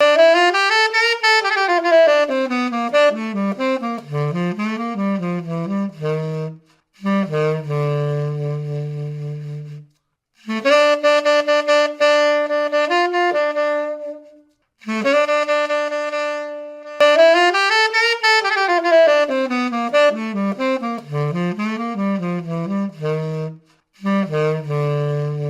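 Saxophone playing a phrase: a quick run of notes that climbs and then falls to a long low note, then two long held notes, then the same run again, ending on the long low note.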